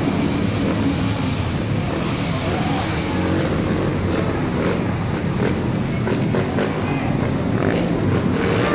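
Steady loud rumbling din of a column of riot police on the move, with scattered sharp knocks and clatter and faint voices mixed in.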